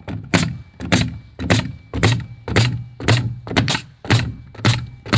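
Bostitch pneumatic nail gun firing nails in steady succession, about two shots a second, while nailing off plywood bracing sheets on a timber wall frame.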